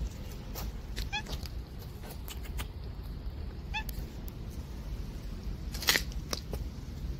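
Domestic cat giving two short, high meows, one about a second in and one near four seconds, over a steady low rumble. Scattered sharp clicks run alongside, the loudest about six seconds in.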